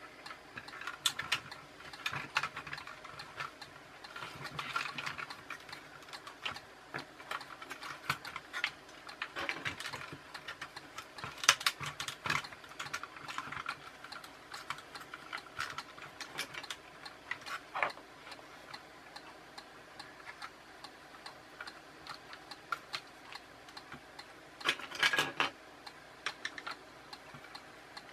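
Irregular clicks and taps of a toy RC car's plastic chassis and gearbox parts being handled and fitted together by hand, with a short burst of louder clattering near the end.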